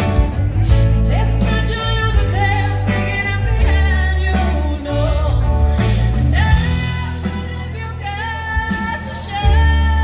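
Live band performing a song: a woman sings lead over electric bass, electric guitars and drums, with a ukulele, in a steady groove.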